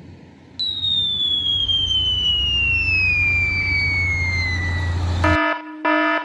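A long falling whistle: one clear tone sliding slowly downward for about four and a half seconds, like a falling-bomb sound effect. Near the end it gives way to three short, loud blasts of a buzzing horn-like tone.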